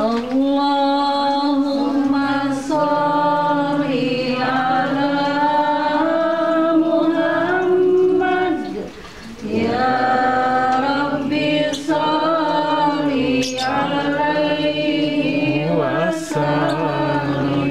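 A woman's voice reciting the Quran in Arabic in the melodic, chanted tilawah style, with long held, ornamented notes and a short pause for breath about nine seconds in.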